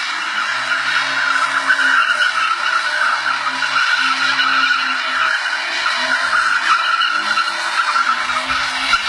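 Tofaş Doğan's rear tyres squealing continuously while the car spins donuts, the engine running hard underneath with its pitch rising and falling.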